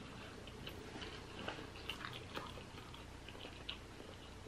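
Faint chewing, with a few soft, scattered mouth clicks.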